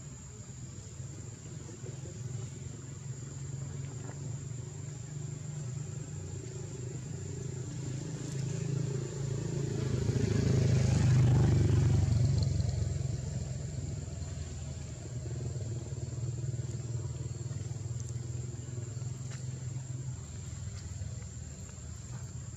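A motor vehicle's engine passing by: a low rumble that builds to its loudest about halfway through and then fades away. A thin, steady high tone runs underneath.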